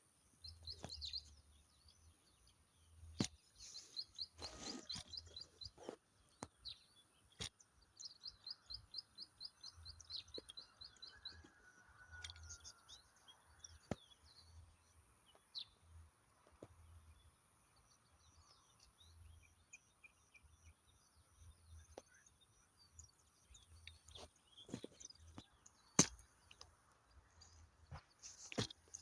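Wild birds singing and calling: several fast trills of high repeated notes and scattered short chirps. A few sharp knocks sound now and then.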